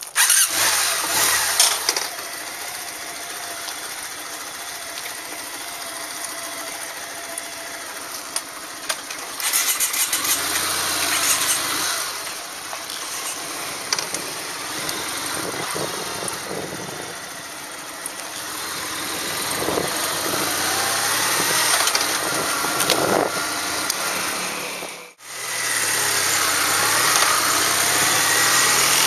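Kawasaki W650's air-cooled parallel-twin engine running under way, its pitch rising and falling as it revs through the gears, over a steady hiss. The sound drops out briefly near the end.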